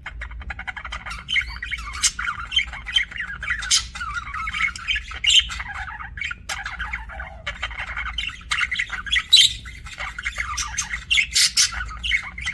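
Budgerigars chattering and chirping without pause, a dense warble of squeaks and sharp chirps with some harsher squawks, over a low steady hum.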